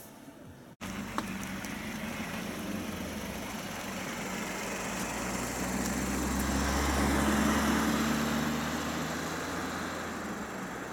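Citroen C3 PureTech 110's 1.2-litre three-cylinder petrol engine running as the car drives slowly close by on a gravel track, with tyre noise. The sound starts abruptly about a second in, grows louder toward the middle and then eases off a little.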